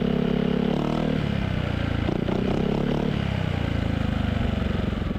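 Yamaha XMAX 250 scooter's single-cylinder engine running through a Villan MV1 stainless aftermarket exhaust; its pitch drops about a second in, and it carries on at a lower, uneven note.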